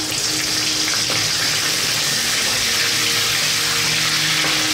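Fresh curry leaves, pandan leaves and cinnamon sizzling noisily in hot oil in a steel wok as they are stirred, a steady dense hiss of frying.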